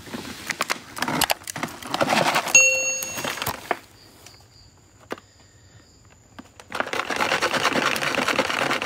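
Crackling and rustling of dry leaf litter and twigs and a plastic water bottle being handled close to the ground, in two spells with a quiet stretch between. A short steady beep-like tone sounds about two and a half seconds in.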